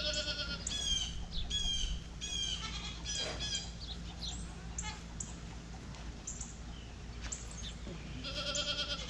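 Small birds chirping over and over with short, quick falling calls. A goat bleats with a wavering call at the very start and again near the end.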